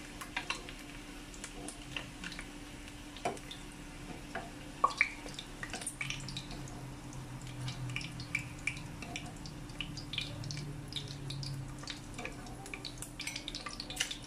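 Whole boiled eggs shallow-frying in oil in a nonstick pan: scattered pops and crackles of spitting oil, with a metal utensil clicking against the pan as the eggs are turned. A steady low hum runs underneath.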